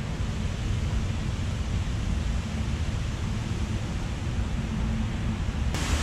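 A steady low rumble of wind on the microphone. Near the end it cuts abruptly to the loud, even rush of a waterfall.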